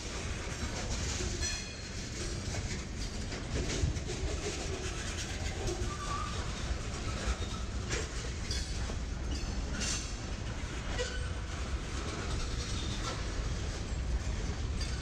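Union Pacific manifest freight train's boxcars and covered hoppers rolling past at close range: a steady low rumble with irregular wheel clicks and clanks over the rail joints.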